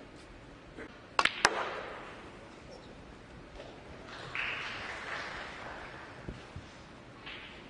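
Snooker balls knocking: a cluster of sharp clicks about a second in, the cue tip striking the cue ball and the cue ball hitting an object ball. A short swell of audience noise follows a few seconds later.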